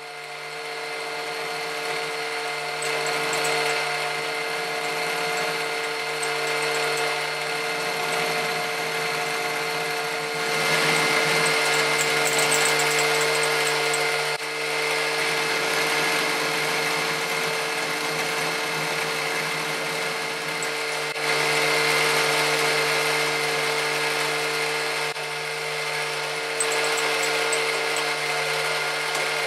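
Warco Super Major milling machine running with a steady motor whine, its end mill cutting a flat across a small metal ball held in a vice. The sound builds over the first couple of seconds, and the cutting gets louder twice, for a few seconds each time.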